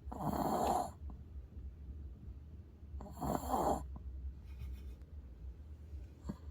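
Dog snoring in its sleep: two loud snoring breaths about three seconds apart.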